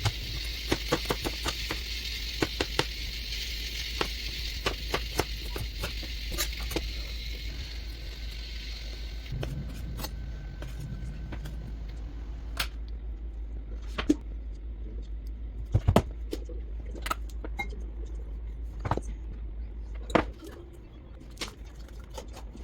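Kitchen cooking sounds: a quick run of knife taps over a hiss for the first nine seconds or so, then scattered knocks and clicks of utensils and cookware, over a steady low hum.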